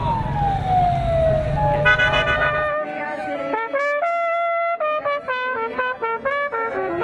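A siren's wail falling in pitch over street noise, giving way about two seconds in to brass music led by trumpet, with held notes that change every half second or so.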